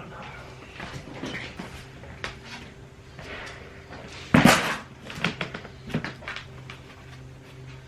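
Belongings being handled and rummaged through: scattered knocks, clacks and rustling, the loudest a brief clattering rustle about four and a half seconds in, over a faint steady hum.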